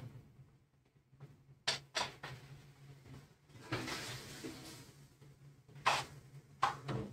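Several sharp knocks and clicks, like cupboard doors or kitchenware being handled, with a stretch of rustling noise about halfway through, over a low steady hum.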